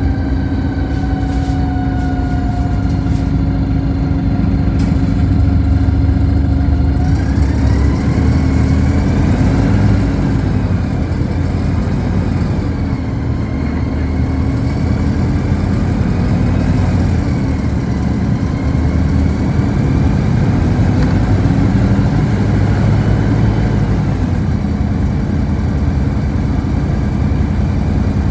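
Ride noise of a moving city bus heard from inside the passenger cabin: a steady engine and drivetrain drone with road noise. A whine slides down in pitch for the first several seconds as the bus slows, then rises and wavers as it picks up speed again.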